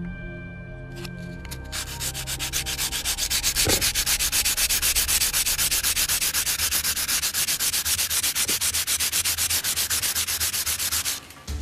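Sanding the seam line of a 1/700 plastic model battleship hull: an abrasive rubbed quickly back and forth over the plastic in a fast, even scraping rhythm. It starts about two seconds in and stops shortly before the end, where background music comes back.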